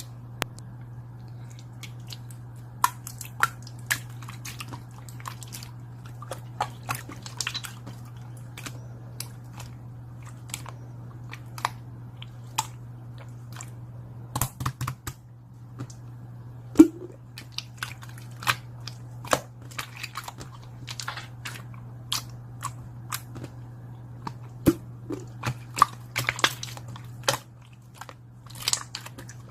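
Close-up chewing and biting: irregular sharp crunches and clicks, over a steady low hum.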